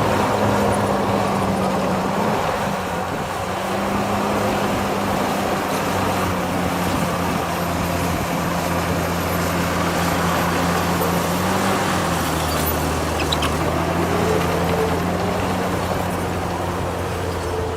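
Heavy diesel engine of construction machinery running steadily under a dense mechanical noise, its pitch stepping slightly about two seconds in and again about twelve seconds in.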